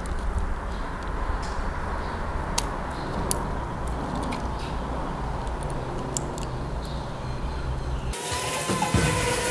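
Scattered light clicks and taps of small plastic and metal parts being handled over a steady low hum. About eight seconds in, background music cuts in.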